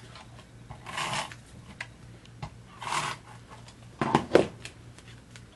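Cardstock sliding and rubbing under a hand as it is pressed into place on the page: three short rustling scrapes, about a second in, near three seconds, and a sharper double one just after four seconds.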